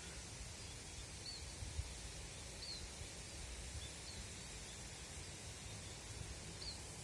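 Faint, steady wind with a low rumble and a hiss, and a small bird giving short high chirps every second or so.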